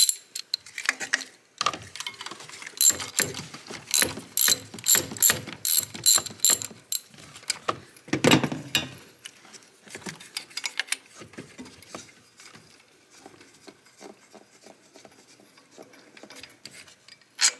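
Hand socket ratchet clicking in quick strokes as bolts are loosened on the engine, with a louder metal knock about halfway through and lighter tool clinks afterwards.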